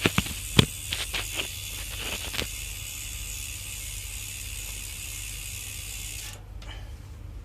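Sagmit bicycle rear hub freewheeling with its stock pawls: a few separate clicks in the first couple of seconds, then a steady high buzz as the wheel coasts, which stops suddenly about six and a half seconds in.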